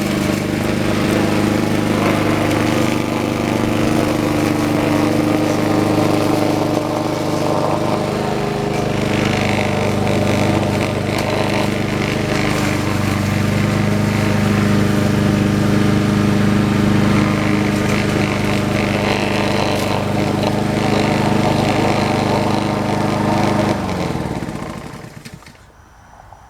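Troy-Bilt 21-inch walk-behind lawn mower's engine running steadily, then shut off about 24 seconds in, its pitch falling as it winds down to a stop.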